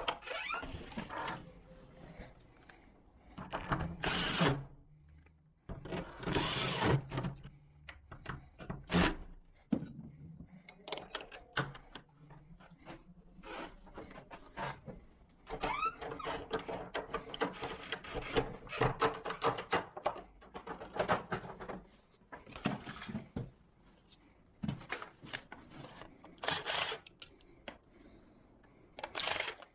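Metal lock hardware and hand tools being worked: irregular clicks, clinks and knocks, with ratchet-like clicking, busiest for several seconds past the middle.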